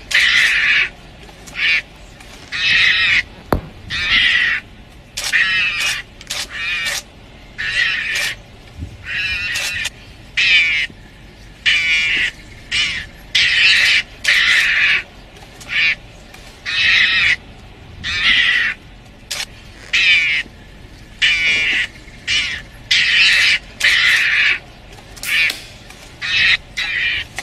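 Shrill, squawking animal calls repeated roughly once a second, each call short, with brief quiet gaps between them.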